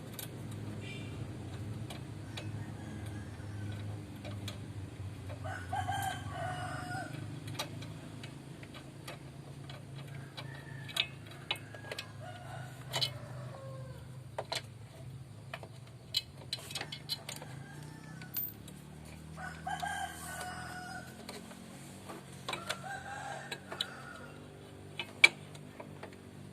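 A rooster crowing twice, each crow about two seconds long, about six and twenty seconds in, with shorter calls between. Scattered sharp clicks and taps run through it, and a single sharp knock near the end is the loudest sound.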